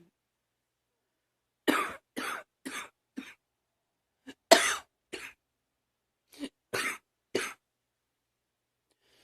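A girl coughing in three fits of short coughs, four in the first, then three and three, with about a second of silence between fits. The loudest cough comes in the middle fit.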